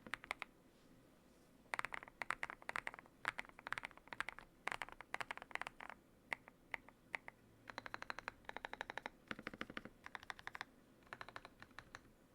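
Typing on a Yunzii YZ98 mechanical keyboard with lubed Durock Ice King tactile switches and XDA-profile keycaps: quick runs of keystroke clacks in bursts, separated by short pauses.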